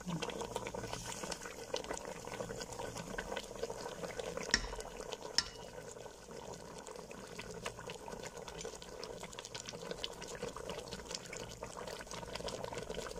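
Gulai curry sauce around a whole chicken simmering in the pot as it reduces, a dense steady crackle of small popping bubbles. Two sharper clicks stand out about four and a half and five and a half seconds in.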